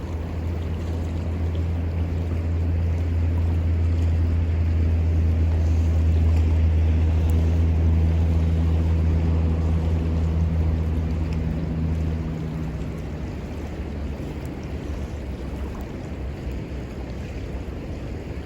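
A motor engine's low hum passing by: it grows louder over about six seconds, then fades away about twelve seconds in, over a steady rushing background.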